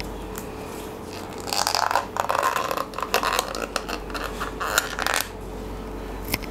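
Thin plastic takeaway container lid being pried off: a run of crackling and sharp snapping clicks from about a second and a half in, stopping a little after five seconds.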